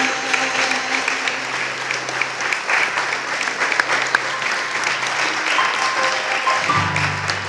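Audience applauding steadily. Near the end a new piece of music starts under the clapping.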